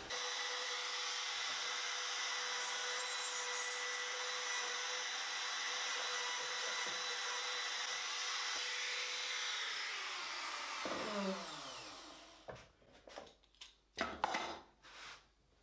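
Handheld trim router running with a steady whine, cutting hinge recesses in the wooden box parts, then switched off and spinning down after about ten seconds. A few light knocks and clicks follow near the end.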